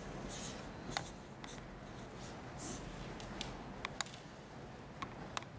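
A pen writing on a sheet of paper on a table: faint scratchy strokes with a few light taps.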